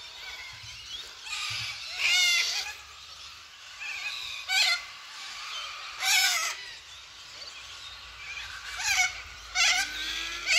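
A flock of white cockatoos giving harsh, shrill screeching calls, about eight of them spaced a second or so apart, the loudest a couple of seconds in and about six seconds in.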